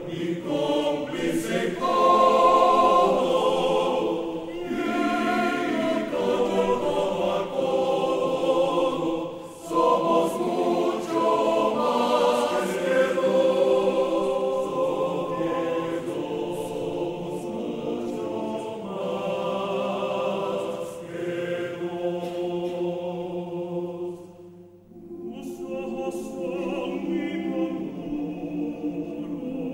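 Men's choir singing sustained chordal phrases, with a short break between phrases about five seconds before the end.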